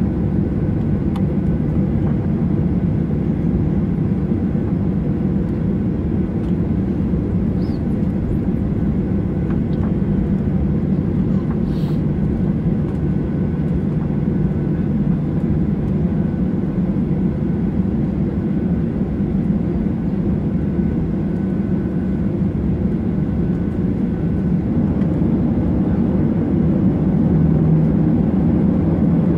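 Steady low drone of a Boeing 737-800's CFM56-7B jet engines, heard inside the cabin from a window seat as the airliner taxis, growing a little louder near the end.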